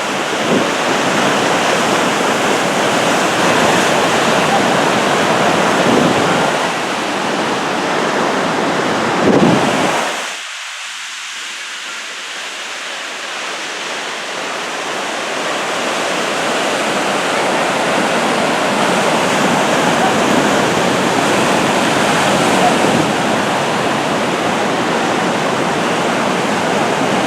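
Sea surf on a beach: a continuous rushing wash of breaking waves that swells and eases. About ten seconds in, the low rumble drops out suddenly and then slowly builds back.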